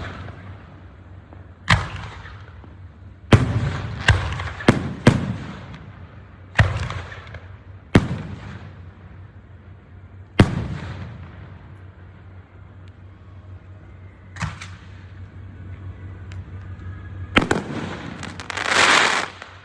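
Fireworks bursting overhead: about ten sharp booms at irregular intervals, each trailing off in an echo, several in quick succession in the first few seconds. Near the end comes a hissing, crackling burst lasting about a second.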